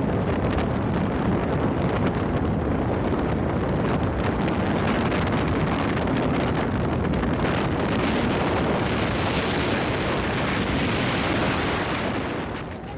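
Strong wind buffeting the microphone: a loud, steady rushing roar with low rumble that eases off near the end.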